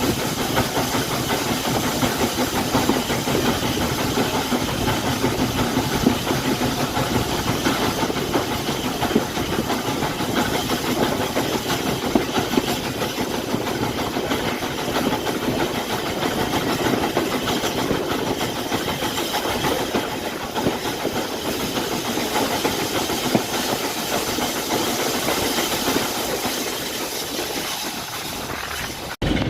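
Steady hissing and mechanical running noise from a heritage railway locomotive, cut off abruptly near the end.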